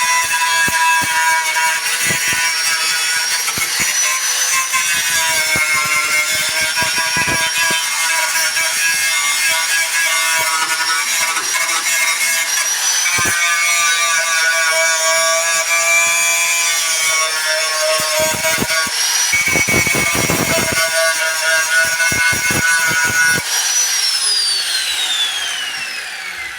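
High-speed handheld power tool motor whining steadily, its pitch stepping up and down a few times as it works, with rough scraping where the tool bites the surface. Near the end the whine falls smoothly as the motor spins down.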